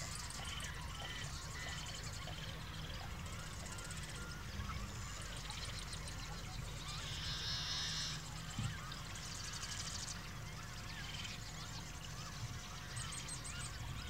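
Marsh ambience of assorted small bird calls and rapid high trills, with a louder buzzy call about seven to eight seconds in, over a steady low rumble.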